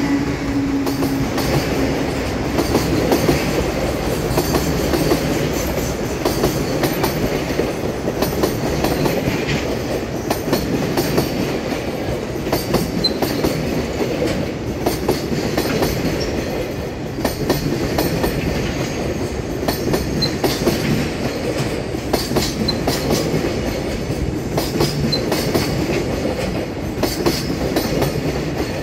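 Freight train of mostly empty Koki container flatcars rolling past, the wheels clattering over rail joints in a steady clickety-clack over a running rumble.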